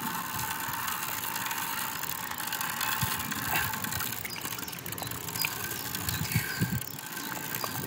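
Fishing reel's drag ratcheting as a hooked sturgeon pulls line off the spool, a run of rapid clicks.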